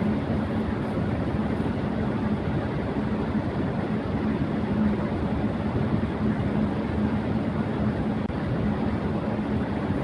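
Electric fan running at high speed: a steady rush of air with a low hum underneath.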